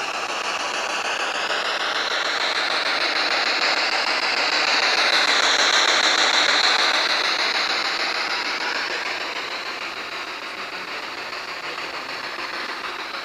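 Rushing noise of a vehicle passing by, swelling to its loudest about six seconds in and then fading away.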